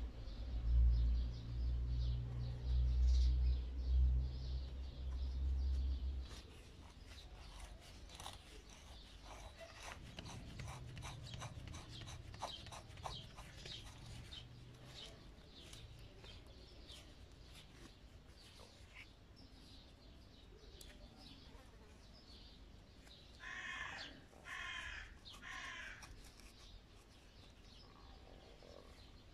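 A low rumble for the first six seconds, then light clicks and taps of brass valve seats and rubber seals being handled and fitted into a brass power-sprayer pump manifold. Near the end a bird calls three times in quick succession.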